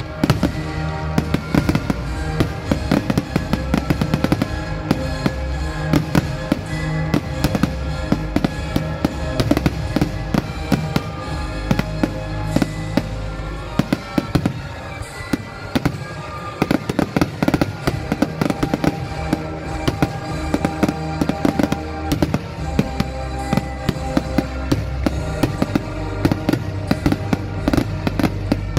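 Aerial fireworks bursting, many bangs and crackles in quick succession, over a song with a steady beat.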